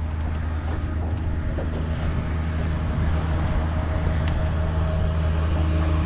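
A boat motor running steadily with a low hum, getting a little louder. A few faint ticks sound over it.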